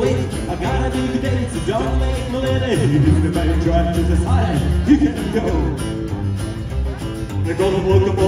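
Rockabilly band playing live without vocals: a hollow-body electric guitar over a slapped upright double bass and a strummed acoustic guitar, with a pulsing bass line.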